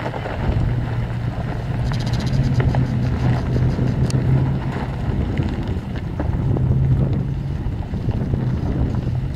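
Off-road SUV engine running steadily with a low hum, under heavy wind buffeting on the microphone, with a few faint clicks.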